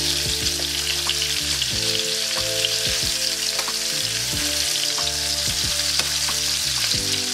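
Bone-in, skin-on chicken thighs sizzling steadily in hot oil in a pan as they are turned over with metal tongs, with a few light clicks of the tongs.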